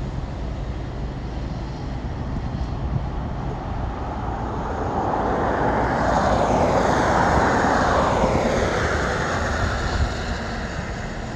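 A passing engine: a broad rushing noise swells over several seconds, is loudest about two-thirds of the way through, then fades, over a steady low rumble.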